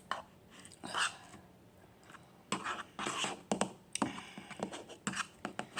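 Scattered scraping and scratching with a few sharp clicks: small handling noises, in several short bursts about a second in, around two and a half to three and a half seconds in, and again near the end.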